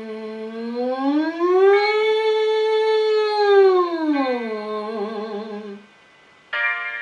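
A woman's voice sirening as a singing warm-up: one smooth glide up about an octave, held at the top, then sliding back down and stopping about six seconds in. A held instrument note from the accompaniment starts suddenly near the end.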